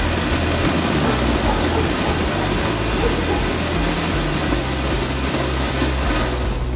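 Four Square ground fountain firework spraying sparks with a steady rushing hiss, over background music with a stepping bass line.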